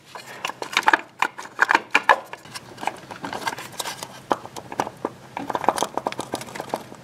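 Irregular clicks and light knocks from a GM HEI distributor being turned and wiggled by hand as it is worked down into a small-block Chevy V8, its shaft not yet seated on the oil pump drive.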